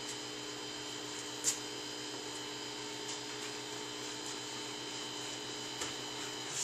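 Steady electrical hum made of several fixed tones, with a single light click about a second and a half in. The hum cuts off at the end.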